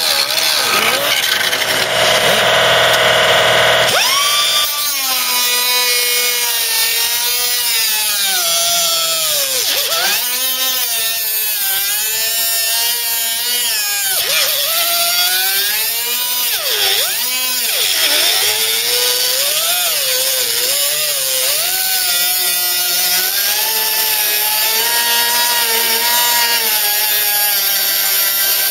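Pneumatic cut-off tool, a small air-driven abrasive disc, cutting through car-body sheet steel. After about four seconds of steadier hiss, its whine keeps dipping in pitch and recovering as the disc bites into the metal and frees up.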